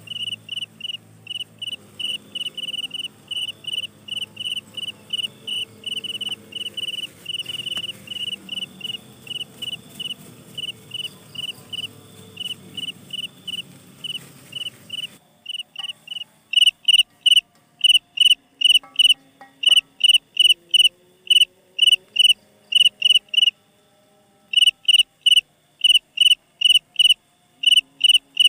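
A cricket chirping in an even, rapid rhythm of short high-pitched chirps, about two to three a second. The chirps become louder about halfway through and break off briefly near the end.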